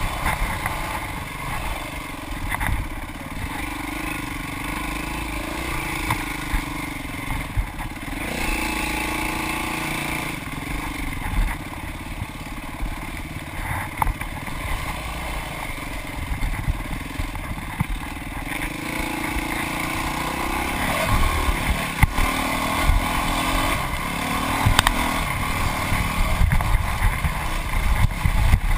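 Dirt bike engine running hard on a rough trail, its pitch rising and falling as the throttle opens and closes, with frequent knocks and rattles from the bike over the ground.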